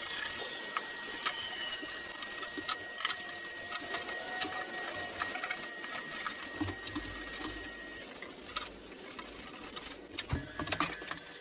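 Paintbrush scrubbing wood stain into rough-sawn pine boards: a steady scratchy hiss with many small ticks, easing off a little about two-thirds of the way through.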